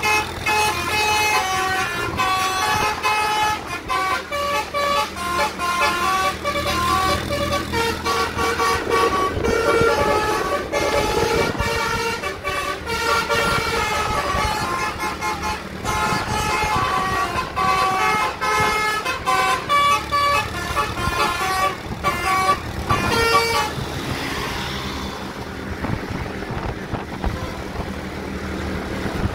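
Tour bus 'telolet' multi-tone air horn playing a quick melody of short, stepped notes. It stops about twenty-three seconds in, leaving the noise of the vehicle.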